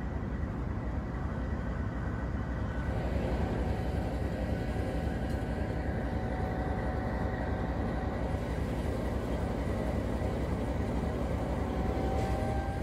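GEU-20 (GE U20C) diesel-electric locomotive running steadily, heard from the walkway beside its engine compartment. Near the end a faint whine rises slightly in pitch.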